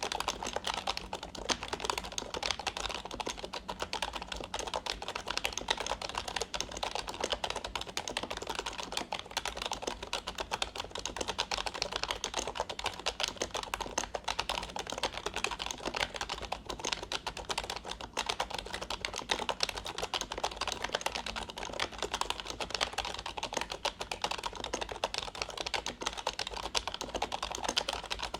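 Fast, continuous typing on a Fujitsu KB-3920F rubber-dome membrane keyboard: a dense run of soft, light keystroke clicks.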